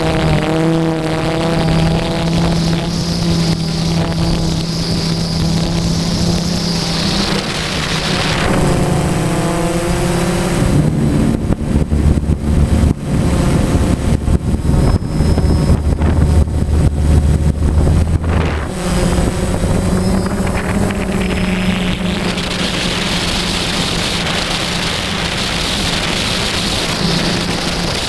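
Phantom quadcopter's motors and propellers, heard from its onboard camera: a steady hum with a whine of overtones that shifts in pitch as the throttle changes about 8 seconds in. From about 11 to 19 seconds, wind buffets the microphone with a choppy rumble, then the steady propeller hum returns.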